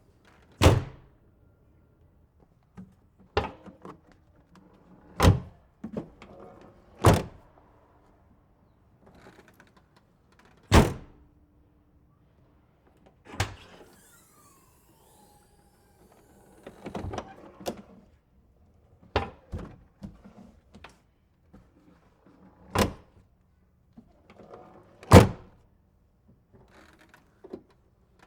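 Old van door being shut again and again: about ten heavy slams a few seconds apart, some with smaller rattling clunks around them.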